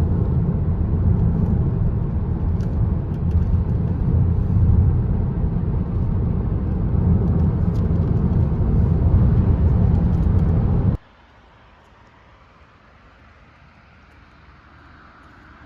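Steady low road and engine rumble heard from inside a moving car. It cuts off abruptly about eleven seconds in, leaving only faint, quiet background.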